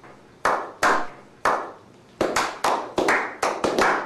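Single hand claps, three spaced well apart and then quickening into a run of about five a second: a slow clap that builds up.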